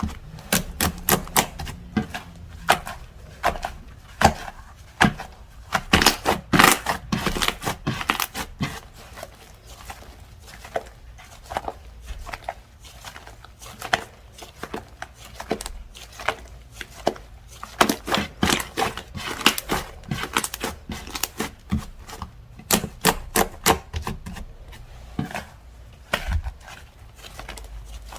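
Slime being squeezed and poked by hand, making quick runs of clicks and pops separated by short pauses.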